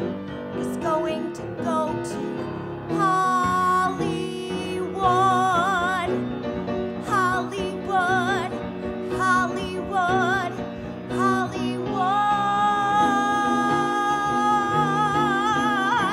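A woman sings a musical-theatre song with piano accompaniment, her voice wavering in a wide vibrato. Short phrases give way to one long held high note for the last four seconds.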